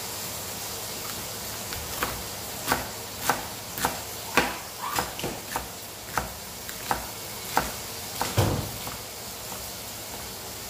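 Kitchen knife chopping cabbage leaves on a plastic cutting board: a run of sharp chops, roughly two a second, starting about two seconds in and stopping near nine seconds.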